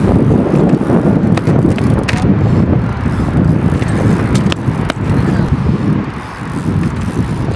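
BMX bike tyres rolling on rough asphalt, a steady low rumble, with a few sharp clicks and knocks from the bike as it is ridden and hopped.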